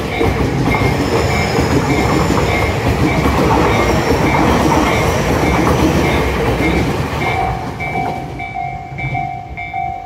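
A Tobu 60000 series electric train on the Urban Park Line runs past close by, its wheels and running gear loud at first and fading away after about seven seconds. Under it the level crossing's electronic warning bell keeps up a fast, steady, repeating two-tone ding, which stands out once the train has gone.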